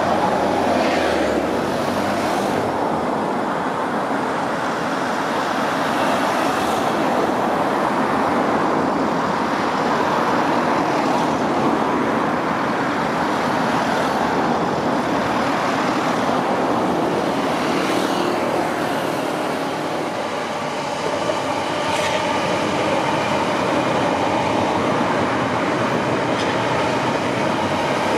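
Two coupled Class 455 electric multiple units running along the track toward the listener and passing close by, a steady rumble of wheels on rail with a few faint clicks.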